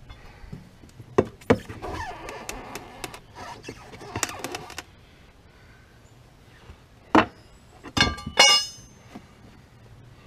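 Handling noise from off-camera tire-changing work: sharp clicks and knocks, a stretch of scraping and rattling from about two to five seconds in, then three loud metallic clanks near the end, the last two ringing.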